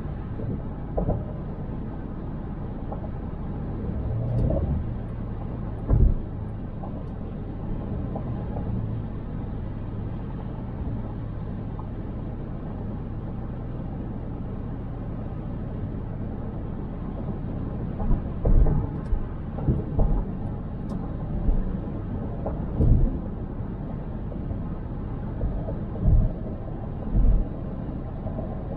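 A car driving in city traffic: a steady low rumble, broken by short dull thumps every few seconds that come more often in the last third.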